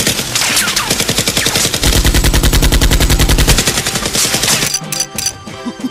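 Automatic-gunfire sound effect dubbed over a Nerf blaster: a long rapid burst, heaviest in the middle, breaking off about three-quarters of the way through into a few single shots.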